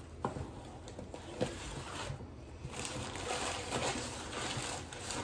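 Newspaper packing rustling as a wrapped container is handled. There are two small clicks or knocks in the first second and a longer stretch of rustling in the second half.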